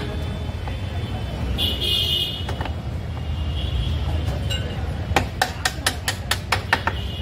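A quick run of about nine sharp knocks, roughly five a second, starting about five seconds in, while the front wheel is being refitted. Underneath is a steady low rumble of traffic.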